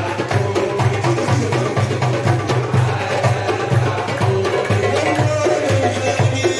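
Egyptian simsimiyya folk music: a plucked simsimiyya lyre playing over a steady, regular drum beat.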